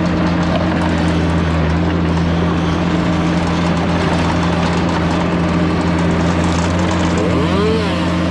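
Mini skid steer's engine running at a steady speed, with a brief wavering squeal about seven and a half seconds in.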